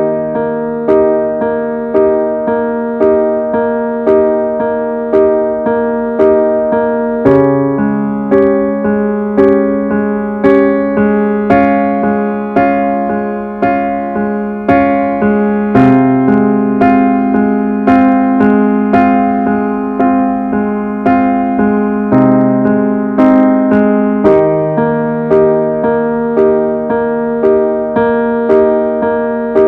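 Slow background piano music: gentle notes struck about once a second over sustained chords that change every few seconds.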